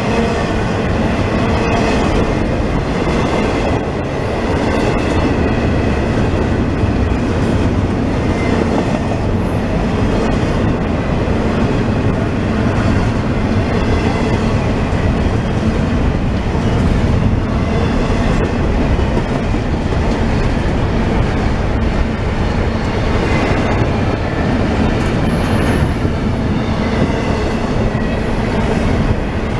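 Intermodal freight train's cars passing at speed: steady, loud rumble and clatter of steel wheels on the rails.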